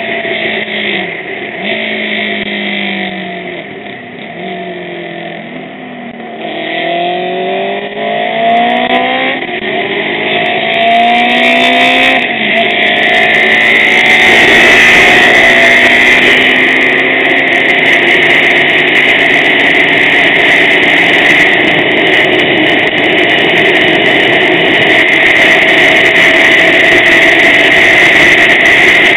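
Racing motorcycle engine heard from on board, its pitch rising and dropping again and again through gear changes, then held steady at high revs from about twelve seconds in, with a loud rushing noise over it.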